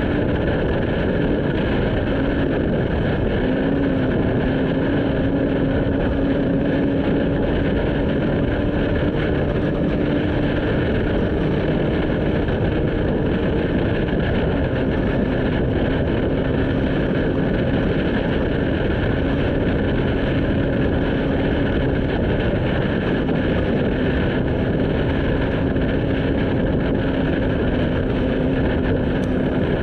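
Off-road race vehicle driving at speed: its engine held at steady revs over a continuous loud rush of tyre, road and wind noise.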